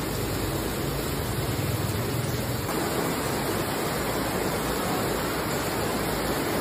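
Heavy rain pouring down on a paved street and pavement: a steady, even hiss of falling water.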